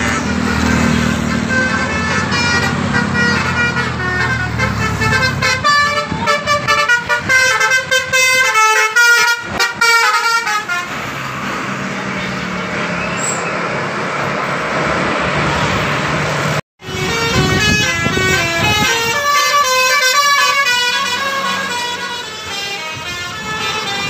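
Bus 'telolet' horns: multi-tone horns on passing buses playing quick melodic tunes of short stepped notes, in two long runs, with a heavy vehicle's engine rumbling in the first few seconds.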